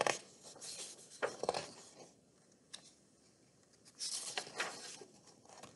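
Paper pages of a picture book being handled: a few light clicks and rustles, then a longer rustle about four seconds in as a page is turned.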